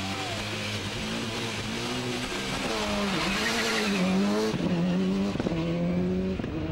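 Subaru Impreza WRC rally car's turbocharged flat-four engine driven hard, the revs climbing and dropping several times through gear changes and corners. A rushing noise swells over the middle seconds as the car goes by.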